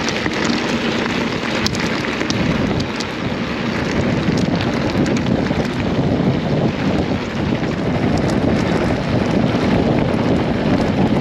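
Wind buffeting the microphone of a camera on a mountain bike riding downhill on a rough forest trail, with tyre noise and scattered clicks and rattles from the bike. It gets a little louder about four seconds in.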